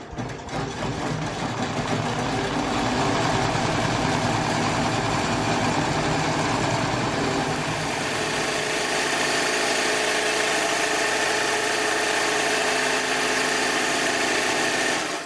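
Multi-needle embroidery machine running, stitching steadily through an appliqué on cork. The sound shifts slightly about halfway through, then stops near the end.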